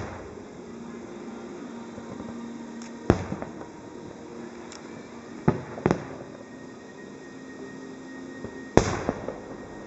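Aerial firework shells bursting: single sharp bangs about three seconds in, two in quick succession around five and a half to six seconds, and one more near the end, each trailing off in a short echo.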